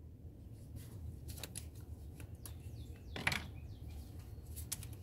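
A few scattered light metallic clicks and taps of a socket wrench being handled and fitted onto a pulley bolt; the firmest knock comes a little past the middle. A steady low hum runs underneath.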